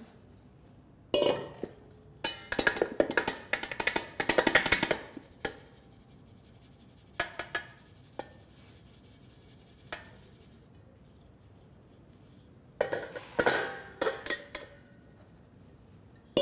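Stainless-steel mixing bowls and a metal flour sieve clanking and rattling as flour is tipped into the sieve and shaken through to sift it, in a few bursts of quick metallic knocks with quiet gaps between.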